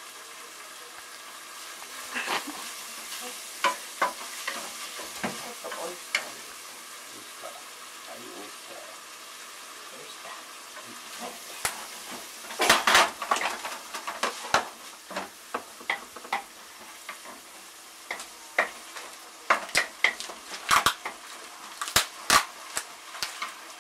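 Ground pork frying in a frying pan with a steady sizzle, stirred with a wooden spatula that knocks and scrapes against the pan. A flurry of knocks comes about halfway through, and more near the end.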